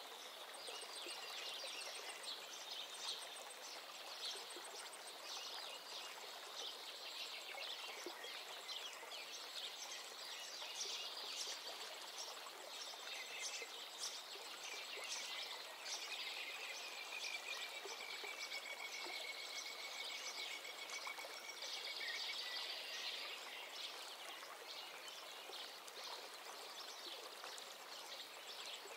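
Birdsong over a steady hiss: several birds chirping and trilling throughout, with one long, thin trill lasting several seconds around the middle.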